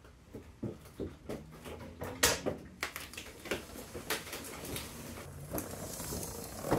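A string of irregular clicks, knocks and clatter from a motorcycle being handled, with two louder knocks close together about two seconds in.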